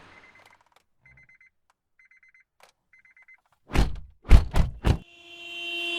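2001 Honda Civic warning chime dinging about once a second, then four heavy thunks of the car's door being shut. Near the end the engine starts and keeps running.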